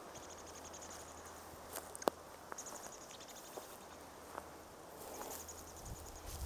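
Parent bird's alarm call scolding an intruder near its fledgling: a faint, rapid, high rattle of chattering notes, heard twice, at the start and again about five seconds in, with a few sharp clicks between.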